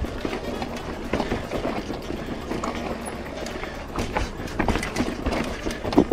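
Full-suspension mountain bike (Lapierre Zesty AM) clattering down a rocky trail: tyres hitting rock and the frame, chain and suspension rattling in quick, irregular knocks over rushing air noise, with one hard knock near the end.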